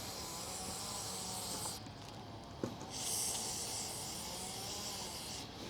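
Aerosol brake cleaner spraying in two long hissing bursts, the second starting about three seconds in, with a single click between them.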